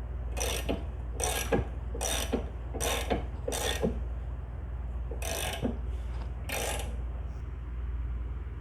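Scissor jack being cranked with a ratchet wrench on a socket welded to its screw, raising the car: seven ratcheting strokes about one every 0.8 s, which stop about seven seconds in.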